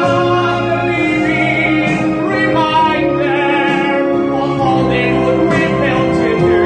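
A solo singer's amplified voice holding and sliding between long notes in a musical-theatre ballad, over sustained accompaniment chords.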